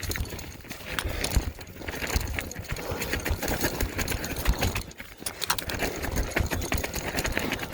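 Lectric XP Lite e-bike moving over rough gravel: irregular crunching, clicking and rattling, over a low rumble of wind on the microphone.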